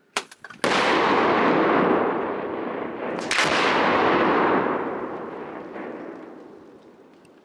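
Explosive demolition charges detonating: two main blasts about two and a half seconds apart, each followed by a long rumble that slowly dies away.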